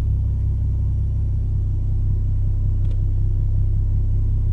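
A steady, deep rumble fills the car's cabin, with no beat or melody on top of it.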